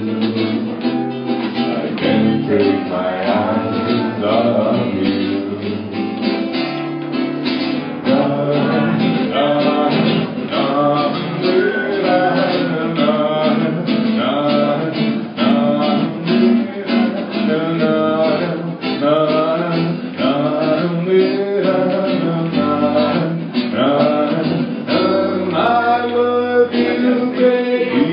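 Acoustic guitar played live with a voice singing a melody over it.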